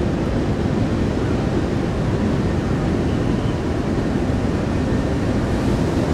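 Wind rumbling on the microphone, loud and steady.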